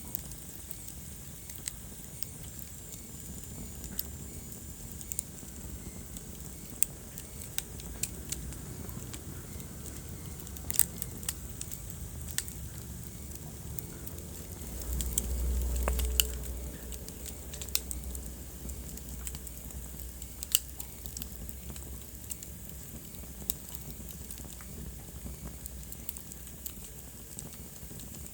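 Wood fire burning in a fireplace: irregular sharp crackles and pops over a steady low rumble of the flames. The rumble swells for a second or two about halfway through.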